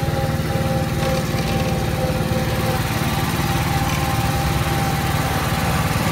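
Small engine of an amusement-park guide-rail ride car running steadily under way, with a fast, even chugging.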